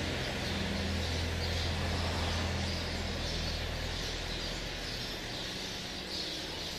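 A steady low mechanical hum, strongest for the first three seconds and then fading, with faint bird chirping over it.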